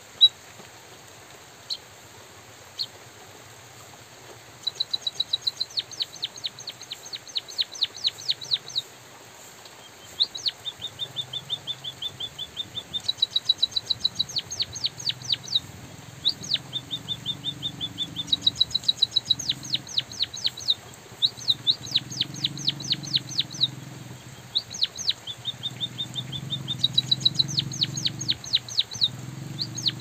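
White-headed munia singing: runs of quick, high chip notes, each run lasting a few seconds, with short pauses between. A faint low hum comes and goes underneath from about ten seconds in.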